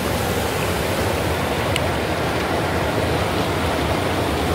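Muddy river in flood rushing over stones: a steady, even rush of fast-flowing water, the river swollen by heavy rain in the hills.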